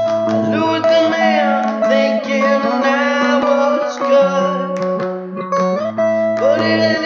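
Song: a voice singing over guitar, with steady held low notes underneath.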